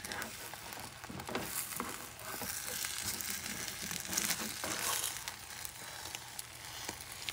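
Eggs of an omelette sizzling faintly in a nonstick frying pan, with soft scrapes and light taps as a spatula works under the edge to lift it for folding.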